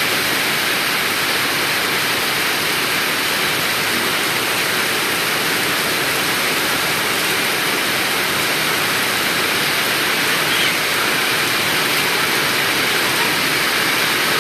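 Heavy rain falling in a steady, loud hiss.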